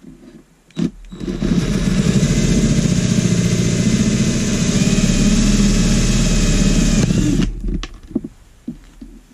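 Electric drill cutting a hole through a thin clear plastic box. After a click about a second in, the drill runs loudly for about six seconds as the bit cuts through the plastic, then stops sharply. A few light knocks follow near the end.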